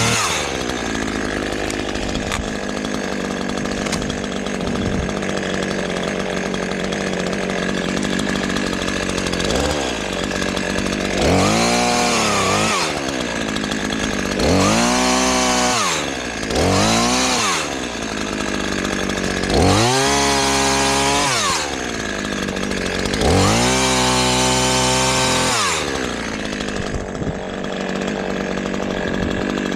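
Two-stroke chainsaw running steadily while sawing sassafras windfall logs. About five times in the middle stretch the engine revs up, its pitch climbing and then falling back.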